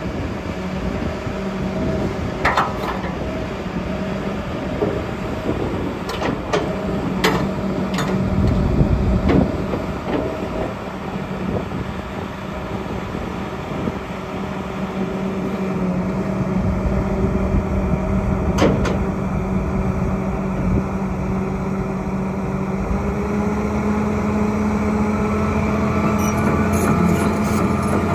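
Diesel engine of a 2007 John Deere 350D LC hydraulic excavator running steadily under hydraulic load as the boom and bucket are worked, with a few sharp clanks. The engine note rises slightly near the end.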